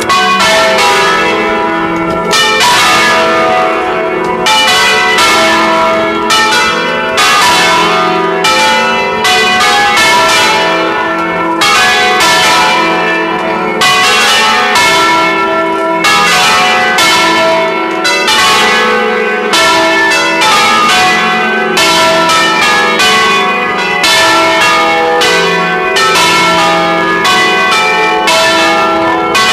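Church bells ringing together, loud, with strikes coming roughly every half-second to second in an irregular, overlapping peal and each note ringing on into the next.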